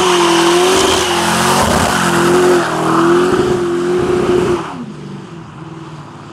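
V8 muscle car engine held at high revs, its pitch wavering, with tyres spinning and squealing in a burnout; the revs cut off sharply about four and a half seconds in, leaving a quieter rumble.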